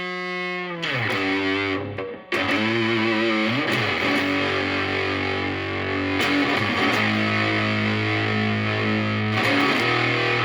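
Stratocaster played through a Moollon Fuzz 14 silicon Fuzz Face-style pedal (BC108 transistors), with the fuzz gain almost full, into a Marshall Valvestate on crunch. There are heavily fuzzed sustained notes, a downward bend about a second in and a short break near two seconds, then long held notes that sustain under the fuzz.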